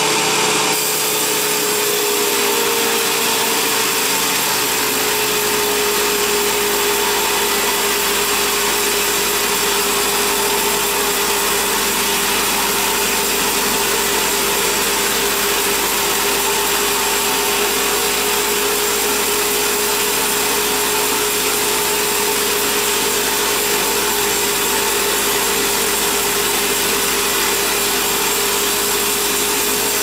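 Large vertical band sawmill running, its blade cutting lengthwise through a big log as it is fed past. A loud, steady machine noise with a constant whine.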